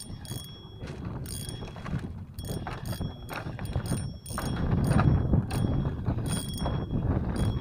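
Spinning reel being cranked in short turns, its gears whirring and clicking as the rod is worked to jig a live bait. A louder low rumble joins about halfway through.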